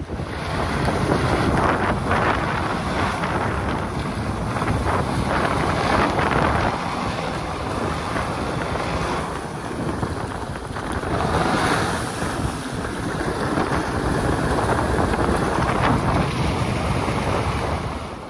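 Supercharged Sea-Doo GTR jet ski churning water as it strains on a tow rope against a boat grounded on a sandbar, mixed with heavy wind noise on the microphone. The rushing noise swells and eases several times, then cuts off abruptly at the end.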